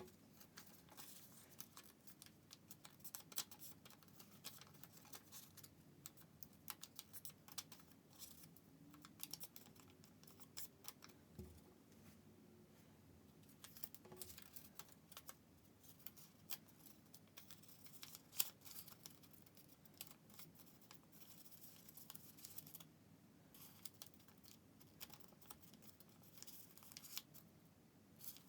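Faint, irregular rustling and crinkling of origami paper being folded and creased by hand, with scattered soft clicks and taps.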